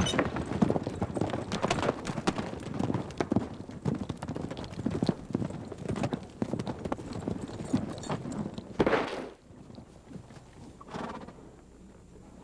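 Horse hooves beating rapidly on the ground for about nine seconds, with a brief louder horse call near the end of the hoofbeats. After that the hoofbeats stop and it goes quieter.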